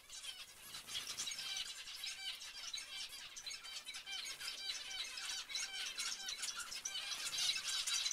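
A flock of zebra finches calling: many short chirping calls overlapping continuously, a little louder near the end.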